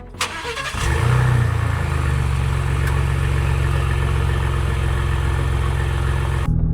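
Ford Bronco's engine starting and settling into a steady idle, then cutting off abruptly near the end.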